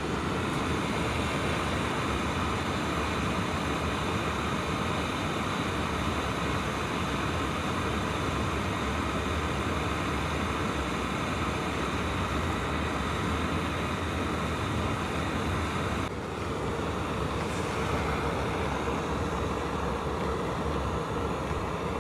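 Jetboil canister gas stove burning: the burner's steady roaring hiss as it heats water. The level drops slightly about sixteen seconds in.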